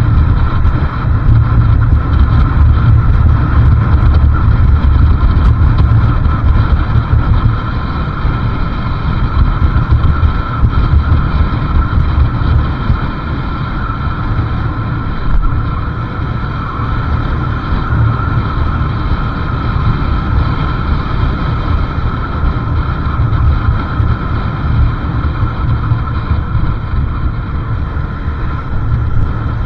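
Riding a motorcycle: wind buffeting the microphone in a heavy low rumble over the engine and road noise. It is louder for about the first eight seconds, then eases a little.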